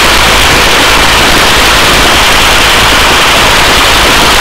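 Loud, steady noise of a helicopter hovering, heard from inside at the open door: a dense hiss with a low rumble under it and no breaks.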